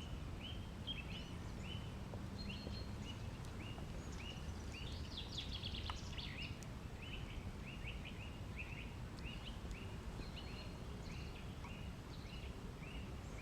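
Songbirds singing in a spring forest: one bird repeats a short high note about twice a second, and a second bird breaks in with a quick twittering run about five seconds in. A steady low background rumble runs underneath.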